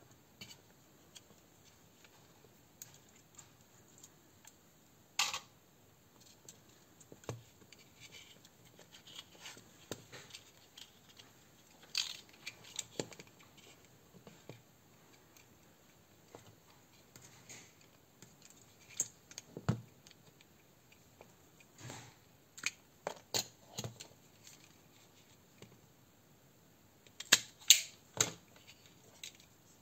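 Small hand tools and wires handled on a workbench: scattered light clicks and taps, with a quick cluster of sharp clicks near the end.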